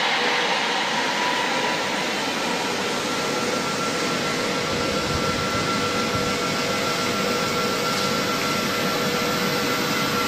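A large congregation cheering and shouting together in a big hall, a steady crowd roar that eases slightly after the first moments.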